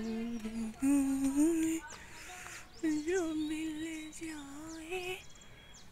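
A woman humming a slow tune in long, gently bending held notes, with small birds chirping faintly in the background.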